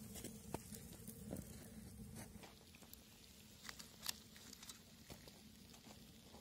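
Near silence: a low steady hum with a few faint, scattered soft clicks at irregular moments.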